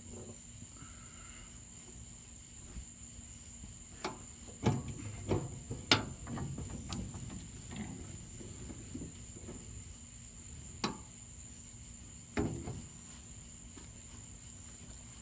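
A homemade foldable antenna mount built from a trailer jack bracket being folded down: a run of knocks and clunks, loudest around the middle, with two more later on. A steady high cricket trill runs underneath.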